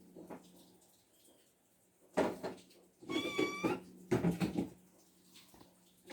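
A domestic cat meows once, a short, high call about three seconds in, between a few short bumps and scuffles.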